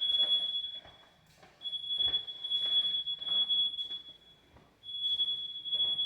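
Smoke alarm sounding in long, high-pitched beeps, each lasting a couple of seconds, with brief pauses between them.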